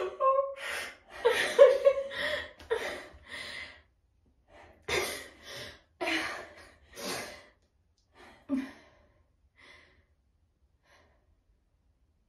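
Two women's laughter breaking up into gasps and breathy sighs as it dies down, with a few last scattered breaths.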